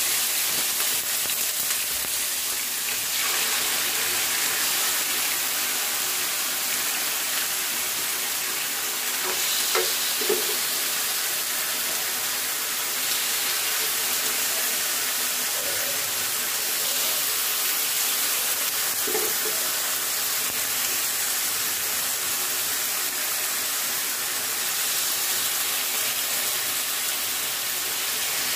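Marinated chicken breast sizzling steadily in a hot ridged grill pan as more raw pieces are laid in, with an occasional small pop.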